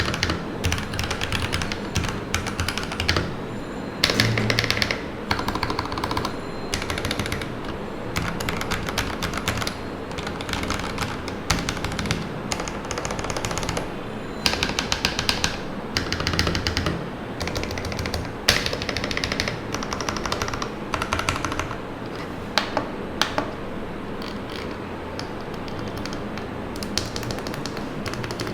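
Typing on a self-assembled custom mechanical keyboard: fast runs of key clacks in bursts with short pauses between. The builder finds the board quite hollow-sounding.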